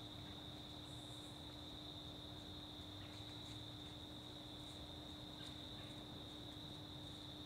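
Faint, steady chorus of crickets, a continuous high-pitched trill, with a few soft rustles of dry leaves underfoot as deer move about.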